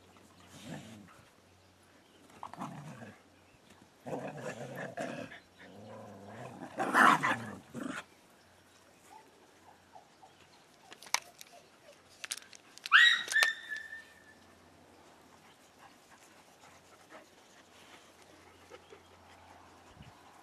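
Dogs playing together, with several bursts of rough, scuffling play noise in the first half and a short, high yelp about thirteen seconds in.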